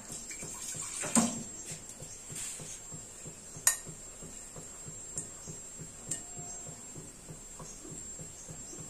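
Steel spoon clinking and scraping in a small steel bowl as poppy-seed paste stuck inside is loosened with a little water, with two sharp clinks about a second in and near the middle, and lighter ones after. A steady low hum runs underneath.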